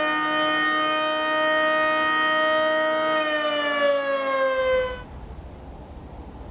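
Federal Signal 3T22A three-tone outdoor warning siren sounding its steady alert tone, a chord of several pitches. About three seconds in the pitch starts falling as the siren winds down, then the sound cuts off suddenly near five seconds, leaving only a low rumbling noise.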